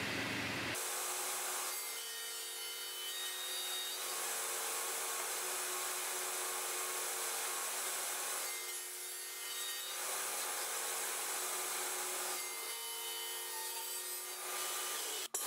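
SCM Minimax sliding table saw running, its blade cutting 18 mm MDF as the panel is fed on the sliding carriage: a steady hiss with a steady machine whine, easing twice. A sharp click near the end.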